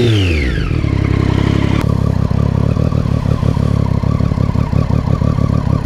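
Triumph Street Triple 675R's three-cylinder engine through a Dominator slip-on exhaust with the dB-killer baffle fitted. Held at about 5,000 rpm, the revs fall away quickly as the throttle is released and settle within a second into a steady, pulsing idle.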